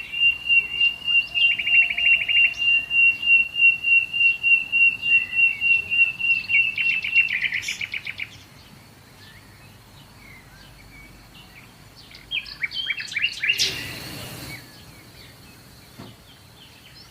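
Birds singing: one bird repeats a high note about four times a second, mixed with short trills, for the first seven seconds. Then it goes quieter, with scattered chirps and trills and a brief rush of noise about two-thirds of the way through.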